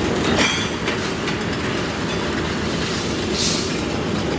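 Steel rolling mill machinery running, a steady metallic rumble and clatter as hot bars move along the roller table and cooling bed. There is a sharp clank about half a second in and a brief hiss near the end.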